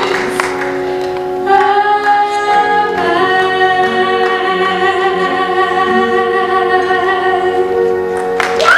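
Stage singers with accompaniment holding a long final chord, which shifts to a new chord about three seconds in and is sustained to the end of the number. Applause breaks out right as the chord ends.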